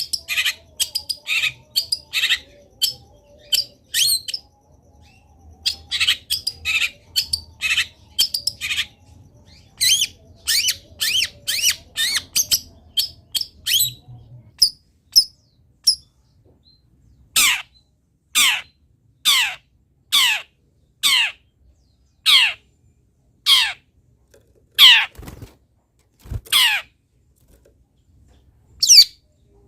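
Long-tailed shrike singing: a fast run of varied, high chattering notes for about the first half, then a series of loud downward-sweeping calls about one a second, one more near the end.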